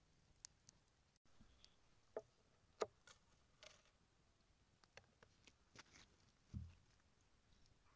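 Quiet handling of cookware and wooden utensils: scattered light clicks and knocks, a sharper click about three seconds in, and a low thump near the end.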